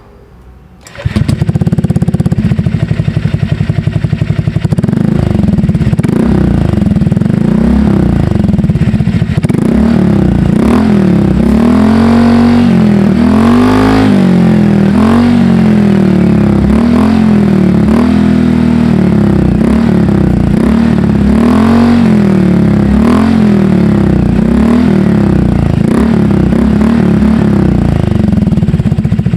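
Honda Click scooter's single-cylinder engine starting about a second in, then running through an SC Project aftermarket exhaust with its inner silencer removed and a custom-made silencer on the outlet. From about five seconds in the throttle is blipped over and over, the pitch rising and falling every second or two.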